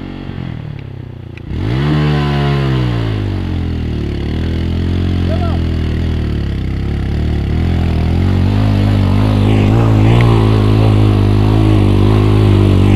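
Off-road vehicle engine (ATV or UTV) revving up sharply about a second and a half in, its pitch sweeping up and back down, then running steadily under throttle and growing a little louder.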